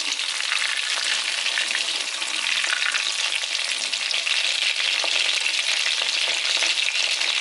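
Masala-coated chicken pieces deep-frying in hot oil in a steel pan, a steady sizzle, the pieces fried through and being lifted out with a slotted steel spoon.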